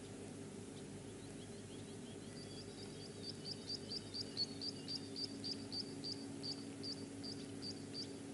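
A small bird calling a long run of short, high chirps, about three or four a second, starting about two seconds in and stopping just before the end, over a steady low hum.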